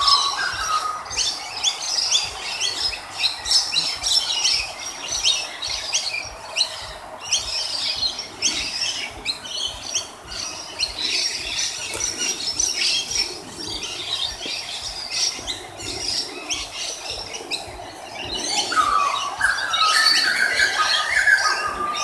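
Rainbow lorikeets chattering and screeching, many shrill calls overlapping without a break. Near the end, a run of lower, clearer stepped notes joins in.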